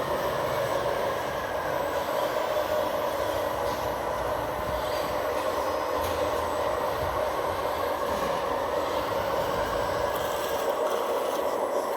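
Hydraulic pump of an RC scale excavator running, a steady whine with a hiss under it.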